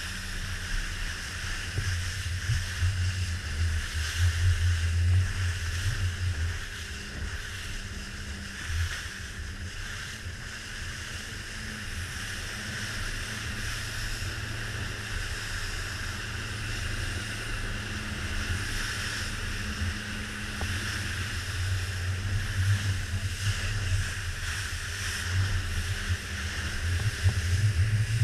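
The Joker Clubman 21 RIB's outboard motor runs steadily under way, with water rushing against the hull and wind on the microphone. The low rumble swells louder a few seconds in and again near the end.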